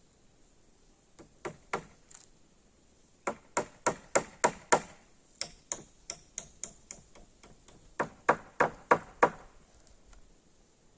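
Hammering: several runs of sharp strikes, about three to four a second. The loudest blows come near the middle and again near the end, with a lighter run of taps between them.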